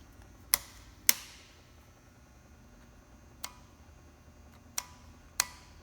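Five sharp, unevenly spaced clicks from the start button of a 2011 Can-Am Renegade ATV being pressed again and again. No starter or engine sound follows: the machine will not crank.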